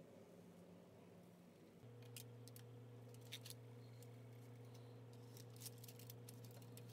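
Faint clicks and scrapes of a table knife and fork cutting through a soft layered cake onto a foil-lined plate, scattered through the second half, over a low steady hum that sets in about two seconds in.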